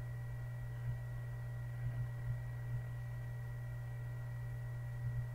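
Steady low electrical hum with a thin high whine above it, broken by a few soft, irregular clicks.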